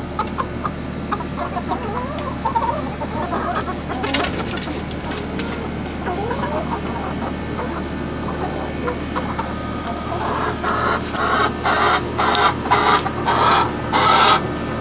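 A mixed backyard flock of chickens clucking softly, then building into a run of seven or eight loud, repeated squawking calls over the last few seconds, each louder than the last.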